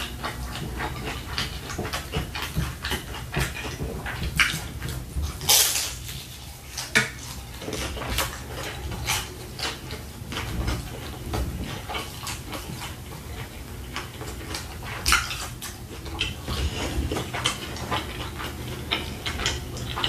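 Close-miked chewing of a fried shrimp egg roll: the crisp wrapper crackling and crunching between the teeth, with wet mouth sounds and a few louder crunches about five and a half, seven and fifteen seconds in.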